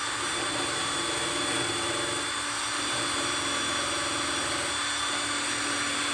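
Cordless drill spinning a wire brush against the teeth of a chainsaw chain, scrubbing off oil and sawdust. The motor runs at a steady speed with a steady whine over a scratchy hiss.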